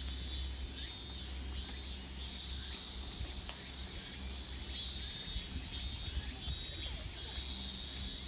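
Wild animal calls outdoors: short high-pitched calls, each under a second, repeated and overlapping again and again over a faint, steady low rumble.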